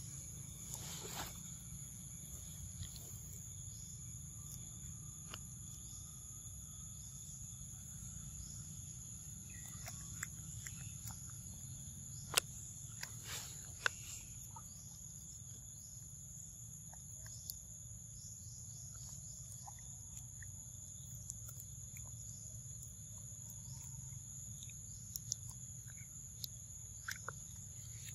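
Steady high-pitched drone of insects, two unbroken tones, over a faint low rumble. Scattered small clicks and snaps come through it, sharpest about halfway in, as a young macaque bites into and handles a round yellow fruit.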